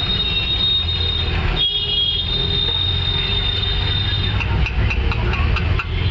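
Street traffic with a steady engine rumble, and a thin high steady tone that stops about four seconds in, followed by a few light clicks.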